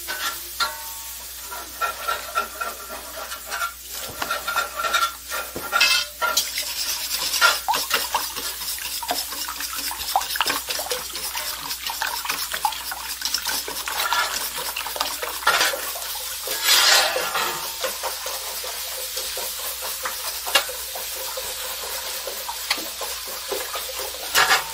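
Wire whisk beating raw eggs in a stainless steel mixing bowl: a rapid run of clinks and scrapes of wire against metal. Near the end, a spatula stirs breakfast sausage browning and sizzling in a cast iron skillet.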